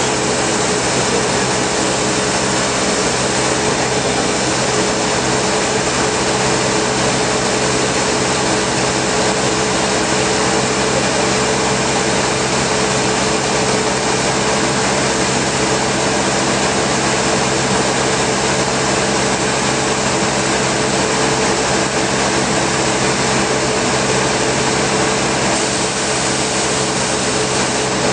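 1987 Chevy 305 TBI V8 engine idling steadily on gasoline: an even, unchanging running noise with a constant hum.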